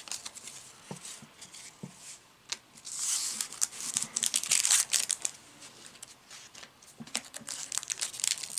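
Foil wrapper of a Yu-Gi-Oh booster pack crinkling and tearing as it is worked open by hand, with a dense crackle in the middle and again near the end. Light clicks of cards being handled come first.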